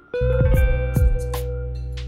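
Instrumental background music with a low bass line and a light steady beat.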